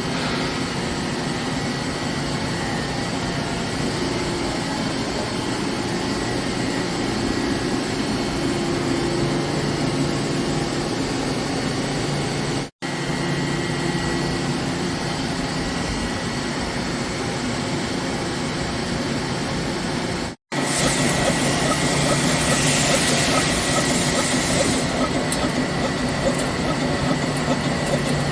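Heavy CNC machine tool running a cut on a metal workpiece: a steady machine hum with a thin high whine. It breaks off sharply twice, and after the second break a hiss joins in for a few seconds.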